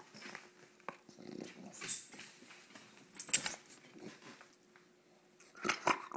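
English bulldog growling in play while being teased by hand, in several short bursts, the loudest about three seconds in and a cluster near the end.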